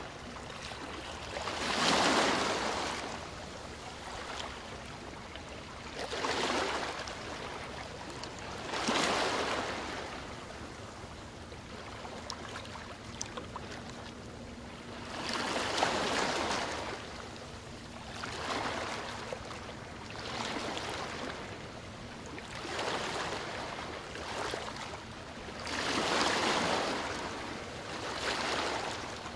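Small waves washing onto the riverbank, a rush of water every two to five seconds.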